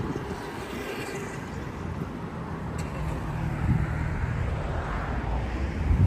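City traffic ambience: a motor vehicle's engine running with a low, steady rumble and hum.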